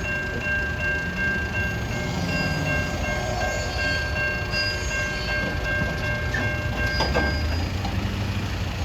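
CN intermodal freight train on the rails: a steady low rumble with a steady high-pitched squeal over it that stops about seven and a half seconds in.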